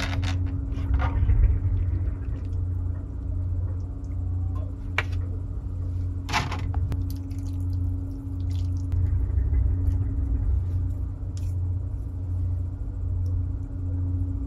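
Steady low droning hum with a constant tone above it, pulsing gently in loudness. A few short clicks and rustles as disposable chopsticks stir noodles and vegetables in a plastic bowl.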